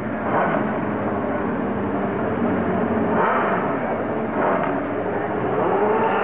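Pro drag-racing motorcycle engine running at the starting line, swelling in level a few times, heard through lo-fi VHS audio.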